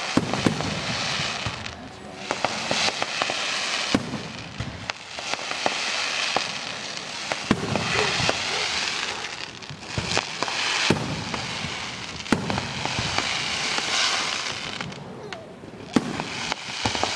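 Fireworks display: aerial shells bursting with a sharp bang every one to four seconds, some in quick pairs, over a constant rushing hiss.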